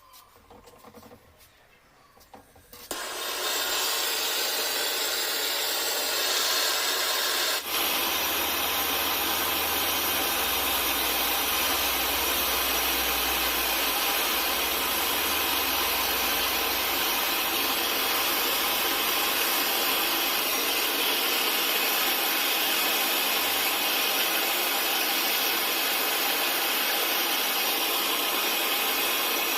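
Gas brazing torch hissing steadily, starting suddenly about three seconds in; a low rumble joins about eight seconds in.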